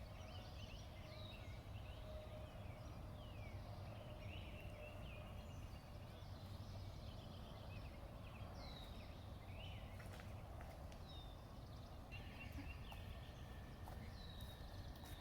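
Dawn chorus of songbirds: many short chirps and quick down-slurred notes from several birds overlapping, over a faint steady low rumble.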